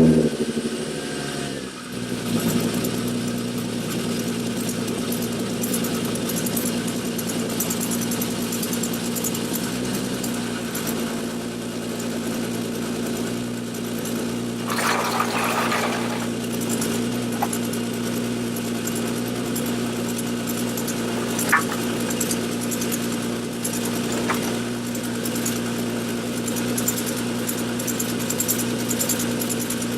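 The 2003 Winnebago Rialta's engine idling steadily after a start, settling about two seconds in, with its exhaust leaking at a rusted-out coupling at the front of the catalytic converter. A short burst of noise comes about halfway through, and a couple of sharp clicks follow later.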